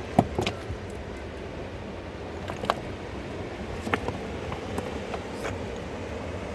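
Steady rush of a fast-flowing mountain river, with a few short, sharp knocks over it; the loudest knock comes just after the start.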